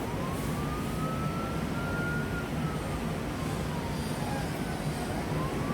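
A siren wailing slowly: its pitch rises for about two seconds, falls again, and starts rising once more near the end. Under it runs a steady low rumble of background noise.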